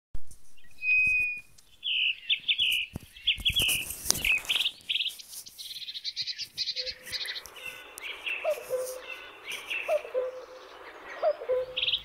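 Small cage birds chirping and trilling in quick, high bursts, with a few sharp clicks in the first half. In the second half a lower call repeats about every second and a half under the chirping.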